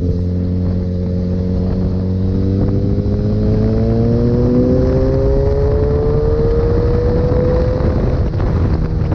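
Sport motorcycle engine pulling in one gear, its pitch rising slowly for about eight seconds before levelling off, over a heavy rushing noise.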